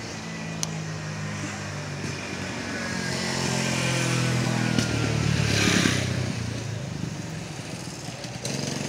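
A motor vehicle passing by: a steady engine hum that swells to its loudest about six seconds in and then fades away.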